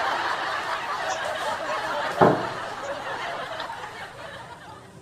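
Laughter and snickering that starts suddenly and fades out gradually, with a sharp click about two seconds in.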